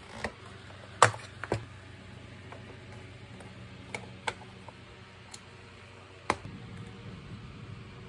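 Sharp clicks and knocks of hard plastic parts being handled inside an opened vacuum cleaner's housing as its electronics board is worked on. The loudest knock comes about a second in and another near the end, over a faint steady low hum.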